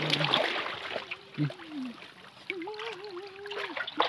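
Muddy shallow water splashing and sloshing as a bamboo polo fish trap is worked down into it, dying away after about a second. Then a voice with long, wavering held notes.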